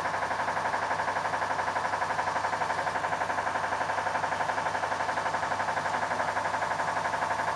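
1.1 kW vacuum pump of a single-mould vacuum former running steadily with a fast, even pulsing, holding suction on the freshly formed plastic sheet while it hardens over the mould.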